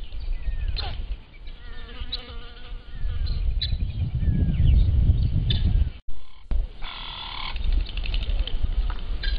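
Wind rumbling on a trail camera's microphone, heaviest in the middle, with small birds chirping and an insect buzzing. The sound drops out briefly about six seconds in.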